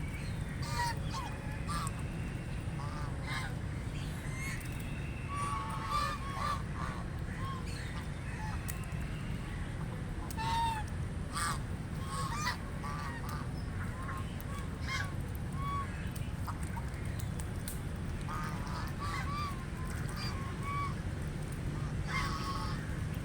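A flock of ducks calling: many short quacks, some overlapping, come in clusters all through, over a steady low background rumble.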